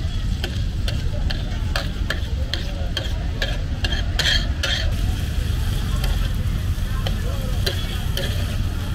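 Metal spatula scraping and clacking on a large flat iron tawa as diced liver fries and sizzles in oil, the strokes coming about two or three a second with a busier flurry about four seconds in, over a steady low rumble.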